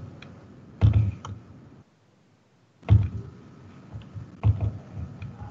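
Computer keyboard and mouse clicks picked up on the microphone, in a few short clusters of taps and thumps. The audio cuts out completely for about a second near the middle.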